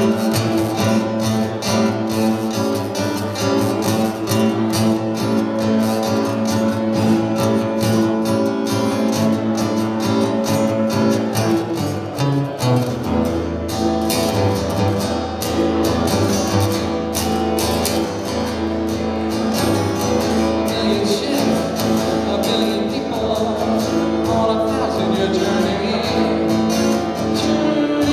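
Acoustic guitar strummed at the opening of a song, with the chord changing about halfway through.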